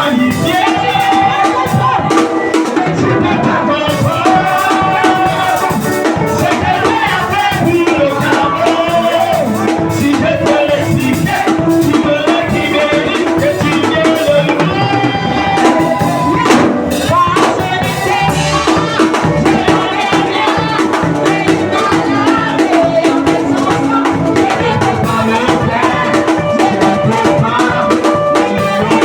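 Upbeat worship music: voices singing a hymn over drums and a shaker rattle.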